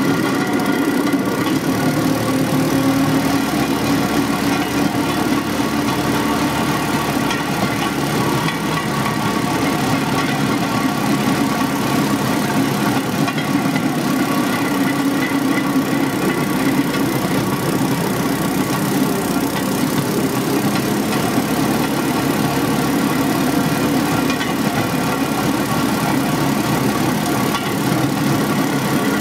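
The engine of a motorized rail cart running steadily as the cart travels along the rails, an even drone with several held tones and no change in speed.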